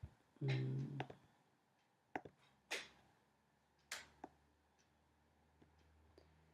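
A brief low voiced sound near the start, then a handful of sharp, separate clicks or taps about a second apart in a quiet room.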